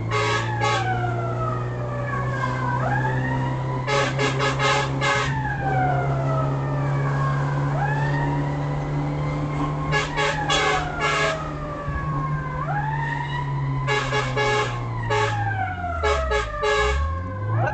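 Fire brigade vehicle's siren wailing in slow falling and rising sweeps over the steady hum of its engine. Four times it is broken by a burst of rapid horn blasts.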